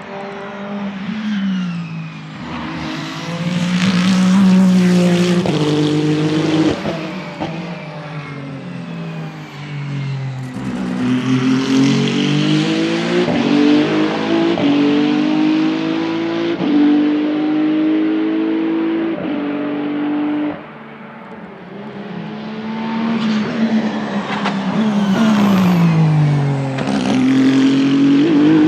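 Race car engine running hard through the gears: its pitch climbs and drops back at each upshift, and sweeps down in falling steps near the start and again about three-quarters through, as on downshifts. The level dips briefly a little past two-thirds of the way.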